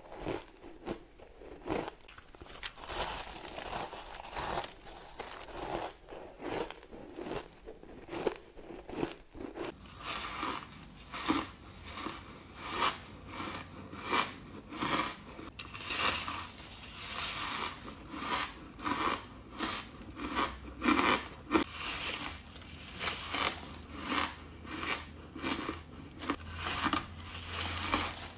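Crushed and powdery ice being bitten and chewed close to the microphone: a steady run of crisp crunches, the louder bites coming about once a second.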